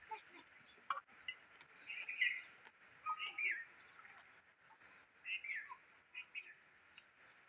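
Birds chirping, short calls coming every second or so, over a steady high hiss.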